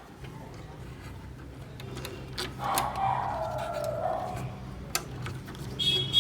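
Small plastic printer gear and housing parts being handled and fitted by hand: a few sharp clicks and some scraping over a low steady hum, with a short high squeak near the end.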